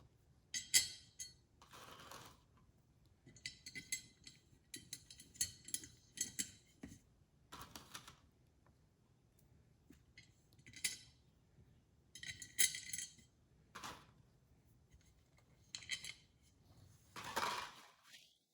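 Intermittent light clinks and rattles of small hard parts being handled and fitted: the lens holder cover being set down over the lenses of an Elation Six Par 100 LED light. The sounds come in short clusters several times, then stop abruptly near the end.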